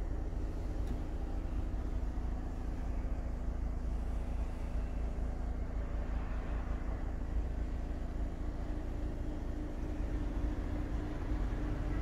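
Volkswagen Crafter's 2.0-litre four-cylinder diesel idling steadily, heard from inside the cab.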